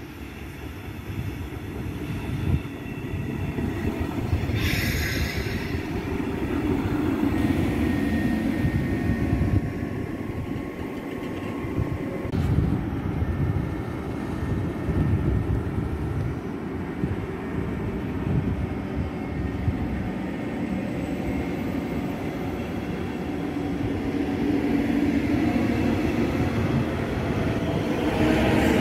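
CFL double-deck push-pull train running past along the platform, its wheels rumbling on the rails. Near the end the CFL Class 4000 electric locomotive pushing at the rear draws close, and its whine rises in pitch.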